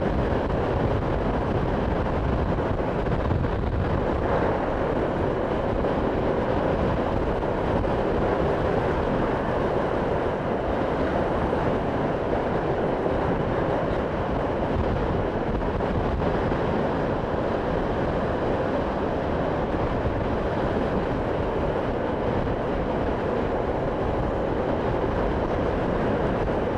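A motorcycle cruising at a steady speed, heard from a camera mounted on the bike: wind rushing over the microphone blends with engine and road noise into an even, unbroken drone.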